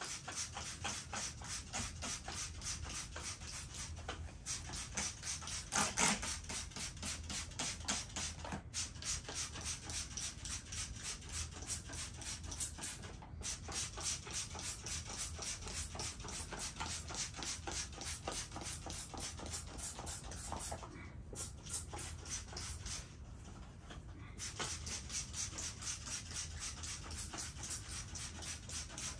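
A hand tool brushing carpet pile in quick, even strokes, several a second, grooming a chlorine dioxide treatment into the fibres. It pauses briefly a few times and for a couple of seconds past the middle, with one louder stroke about six seconds in.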